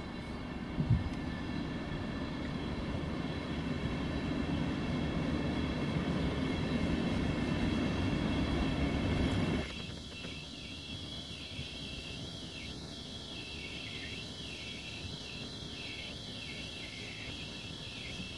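ÖBB Railjet passenger coaches rolling past on the track with a steady low rumble and a short knock about a second in. The rumble drops off abruptly about halfway through, leaving a quieter running hiss.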